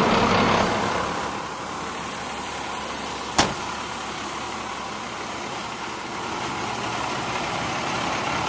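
DT466 inline-six diesel of a 2000 International 4900 truck idling steadily. About three and a half seconds in comes a single sharp bang as the cab door shuts.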